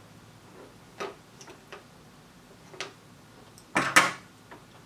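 Light clicks and taps of a circuit board and tools being handled on a bench cutting mat, then a louder double clatter about four seconds in as things are set down.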